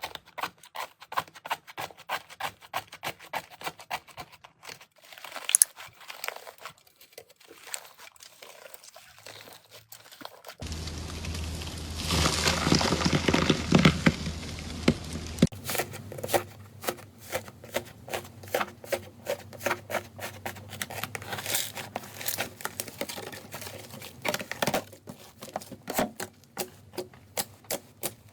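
Slime being squeezed and pressed by hand, giving quick sticky clicks and crackles at about three or four a second. From about ten seconds in there is a louder, denser crackling for some five seconds, and then the quick clicking comes back.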